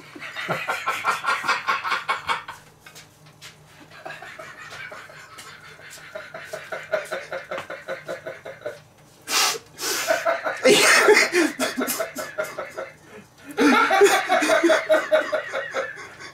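A man laughing and blowing out sharp, breathy puffs of air while chewing a bite of food that is too hot: he is burning his mouth.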